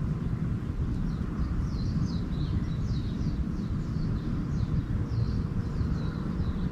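Small songbirds twittering in a quick run of short, falling chirps, over a steady low rumble.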